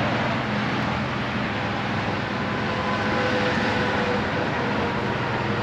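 Steady low mechanical hum under a constant outdoor background noise.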